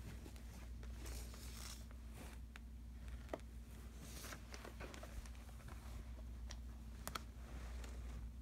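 Faint rustling of a shower curtain set's plastic-and-cardboard packaging being handled and turned over, with a few light clicks and taps, over a steady low hum.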